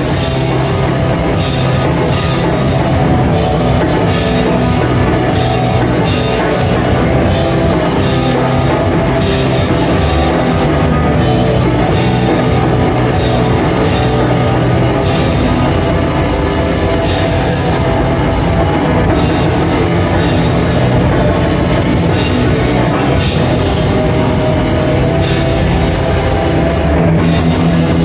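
A screamo hardcore band playing live, with a drum kit and guitars, loud and dense without a break.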